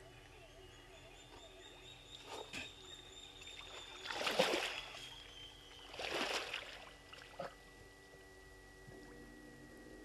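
A hippopotamus breathing out heavily twice, close to the microphone, as two long breathy whooshes about four and six seconds in.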